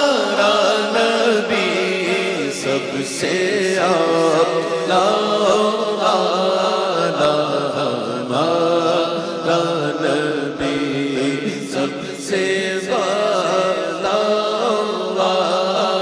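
A man singing an Urdu naat solo into a microphone: long, drawn-out phrases with gliding, wavering ornaments on the held notes.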